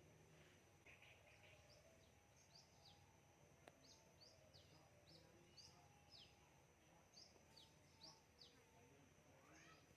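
Faint bird chirps: many short, high calls that each drop quickly in pitch, coming every half second or so.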